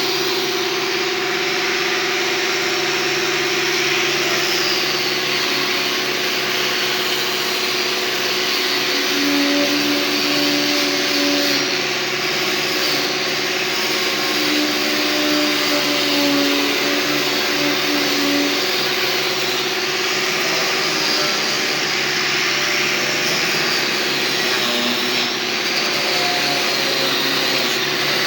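An electric power tool's motor running steadily and without a break, a continuous mechanical whine over a steady hum.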